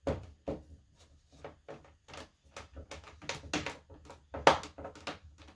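Screwdriver clicking and scraping against the plastic back casing and stand hinge of an HP all-in-one desktop computer. It makes a run of irregular small clicks and knocks, with a louder knock about four seconds in and a sharp one at the very end.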